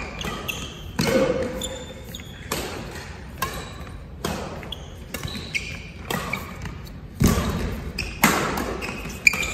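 Badminton rackets striking a shuttlecock in a rally, sharp hits roughly once a second with echo, mixed with short squeaks of shoes on the court floor.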